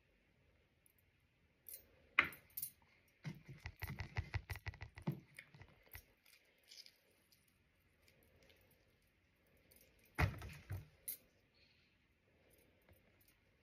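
Eating sounds: a metal fork and oyster shells clicking and clinking. There is a quick run of clicks about three seconds in and another short cluster later.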